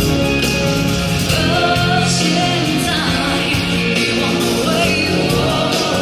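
Live pop concert music heard from the audience in an arena: a band with strings playing, with singing.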